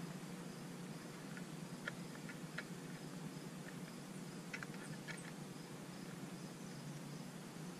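Faint steady hum of a Weller transformer soldering gun held on, heating a large crimp connector, with a few short faint crackles scattered through it.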